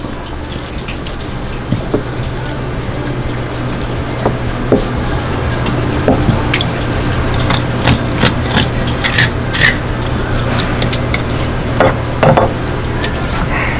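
Knife work on a large yellowtail: the blade cutting and scraping through flesh and bone against the cutting board, with many short sharp clicks and wet squelching as the gills and innards are pulled free. A steady low hum runs underneath.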